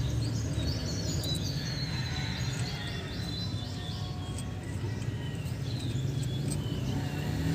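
Birds chirping repeatedly in short downward-sliding calls over a steady low background hum.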